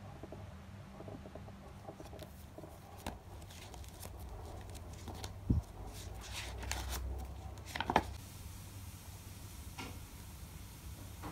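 Paper pages being turned and riffled by hand, a thick journal and a small Bible, with soft rustling, a low thump about halfway through and a louder crisp page rustle a little later.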